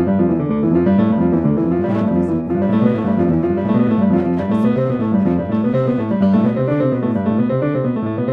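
Piano playing a fast, busy passage of quickly changing notes that weave up and down through the low and middle register.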